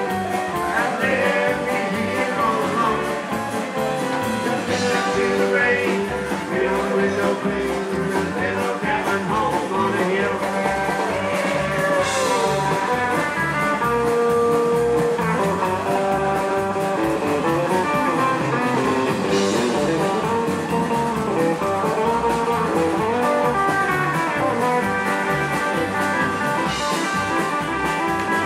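Live rockabilly band playing: electric guitar over acoustic guitar, upright double bass, keyboard and drums.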